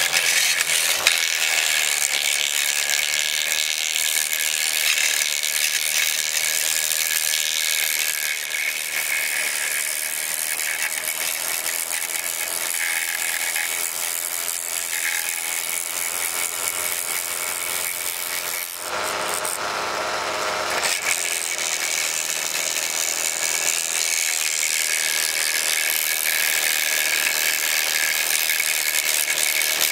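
RC model wood chipper running with a steady high whine and a dense mechanical rattle while branches are fed in; the sound changes briefly about two-thirds of the way through.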